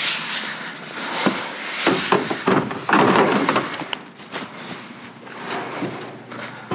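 Irregular knocks, bumps and clattering of items being shoved and jostled in a tightly packed dumpster, busiest about two to three seconds in and then easing off.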